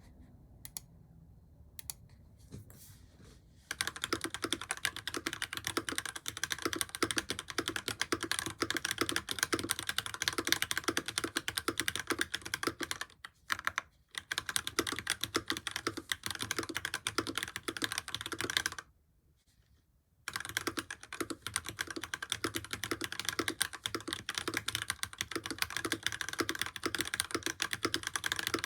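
Fast typing on a modded FL Esports CMMK MK870 mechanical keyboard with Akko switches: dense runs of keystroke clicks. It starts after a few quiet seconds and pauses briefly twice.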